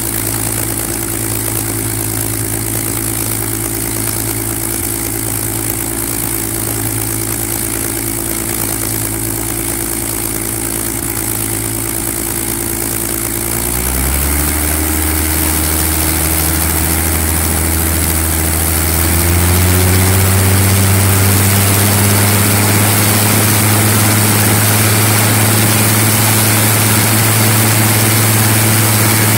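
Rolls-Royce Griffon V12 engine of a Spitfire Mk XIX running on the ground, propeller turning. It runs steadily at low revs, steps up in speed about halfway through, then steps up again about five seconds later and gets louder. This is a freshly installed engine on an early run, not yet pulling its full revs.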